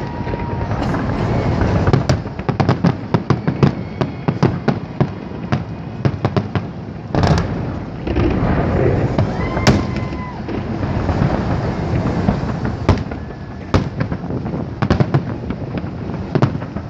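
Holiday fireworks salute: a dense run of sharp bangs and crackling shell bursts, fastest between about two and five seconds in, with heavier single bangs around seven, ten and thirteen seconds. A faint short whistle rises over the crackle near the ten-second mark.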